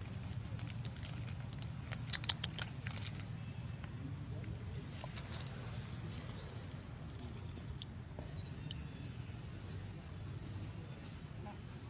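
Steady, high insect chirring with a fast pulse, over a low background rumble. A quick cluster of sharp clicks or taps about two seconds in.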